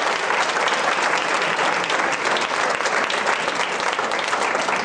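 Audience applauding: dense, loud clapping from a full room.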